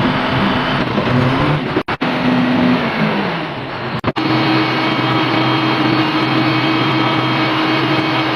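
Heavy construction machinery engine running, its pitch shifting in the first half and then holding steady. It drops out twice, briefly, about two and four seconds in.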